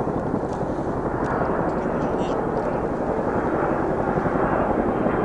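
Steady rumble of distant military aircraft engines overhead, with a faint murmur of spectators underneath.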